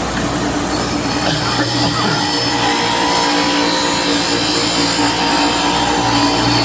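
Bench grinder with an 80-grit wheel running steadily, a metal casting pressed against the wheel to grind off casting flash and burrs, a steady hum under a grinding hiss.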